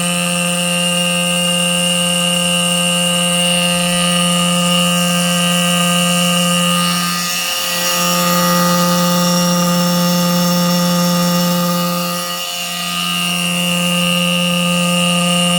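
Antique Edwards Adaptahorn fire alarm horn sounding on continuous, its motor driving a part that vibrates a large metal plate. It gives a loud, steady horn tone on one low pitch with many overtones, dipping briefly twice, about halfway through and again near three-quarters.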